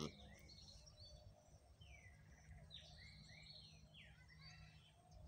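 Faint birdsong, several short chirps and sweeping calls, over a low background rumble.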